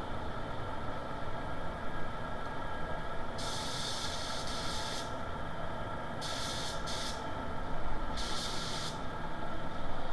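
Compressed-air paint spray gun hissing in four short bursts, the first and longest about a third of the way in, over the steady drone of the spray booth's ventilation.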